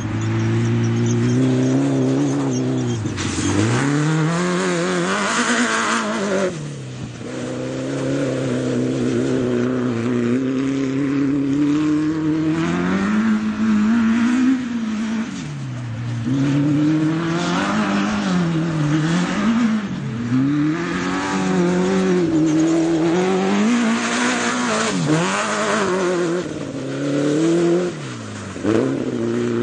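Autocross buggy's engine revving hard, its pitch climbing and then dropping steeply several times as the throttle is lifted and reapplied through the turns, with bursts of hiss over it.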